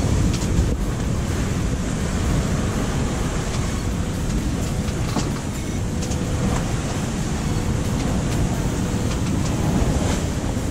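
Wind buffeting the microphone over the rush of waves and spray along the hull of a sailing yacht beating close-hauled into a strong breeze, with a few faint clicks.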